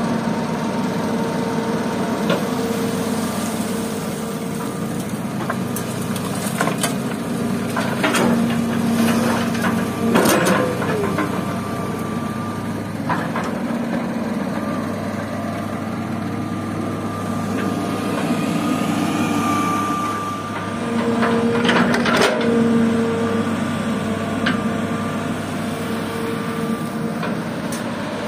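Old hydraulic excavator's diesel engine running steadily, its note swelling twice under hydraulic load as the bucket digs and lifts. Scattered clanks and scrapes of the steel bucket against soil and stones.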